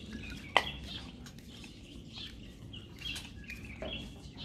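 Birds chirping in the background, several short calls, with one sharp click about half a second in.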